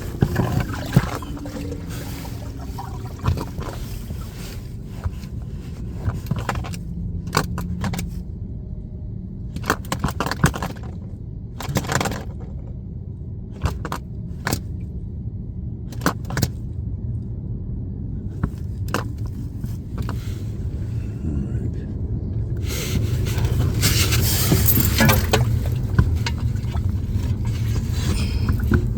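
Scattered knocks, scrapes and clicks of hands working on a sump pump and its fittings, over a steady low rumble, with a louder stretch of rustling and scraping near the end.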